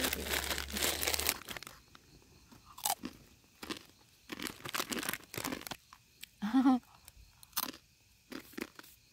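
Dry instant ramen noodles crushed inside their crinkly plastic package, then eaten raw: crisp crunching and chewing with scattered sharp bites. A short hummed voice sound about two-thirds of the way through.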